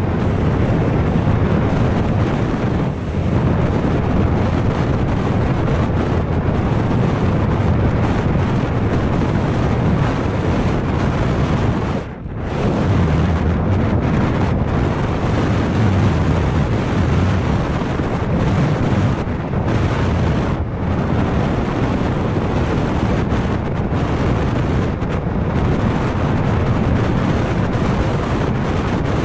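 Wind buffeting the camera's microphone on a scooter riding at about 55 km/h, a steady rush of wind and road noise, with a short dip about twelve seconds in.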